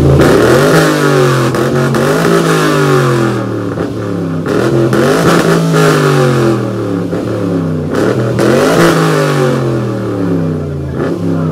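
Chevrolet Camaro SS's V8 revved hard through its exhaust while standing still, the engine note climbing and falling back six or seven times in a row.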